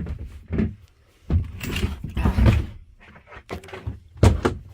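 Several hard thuds and knocks, with a longer rattling, scraping stretch in the middle, from parts being handled during a bunk installation in a truck's sleeper cab.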